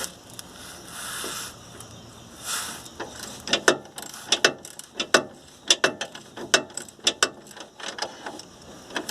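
Ratchet wrench clicking in short, irregular strokes as a bolt is tightened by hand, a few clicks a second, starting about three seconds in after a few soft hisses.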